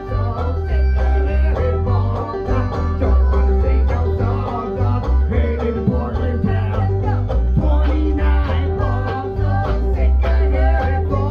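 Band music: an instrumental passage with plucked strings over a steady, heavy bass line.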